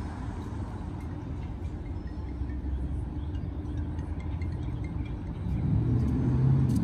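Street traffic: a steady low rumble of road vehicles, swelling near the end as a vehicle engine grows louder.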